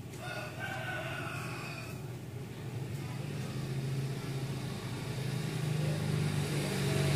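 A vehicle engine running with a low hum, growing steadily louder. A brief higher-pitched sound comes in the first two seconds.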